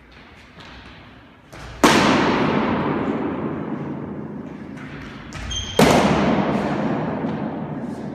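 Two hard strikes of wooden practice sticks during stick sparring, about four seconds apart, each ringing on in a long echo off the bare walls of a racquetball court. Lighter knocks come before the first strike, and a short squeak comes just before the second.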